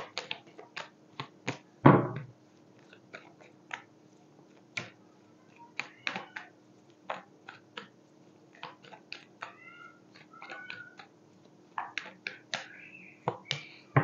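Tarot cards being shuffled by hand, with a run of irregular sharp clicks and flicks and a louder thump about two seconds in. A few faint wavering high calls come through in the second half.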